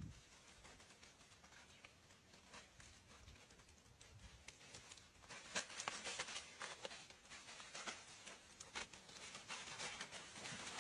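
Faint rustling and crackling made of many small clicks, sparse at first and busier from about halfway.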